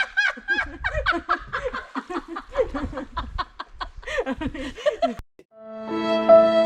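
People laughing and chuckling with bits of talk for about five seconds, then background music with long held string notes comes in near the end.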